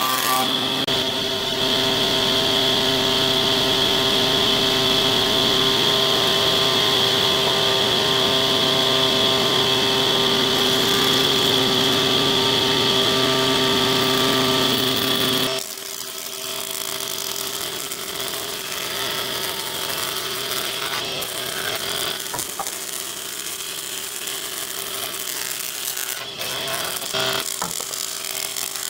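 Industrial wood planing machines running and cutting pine beams: a steady high whine over the rush of the spinning cutterheads. About halfway through it drops to a quieter steady running hum.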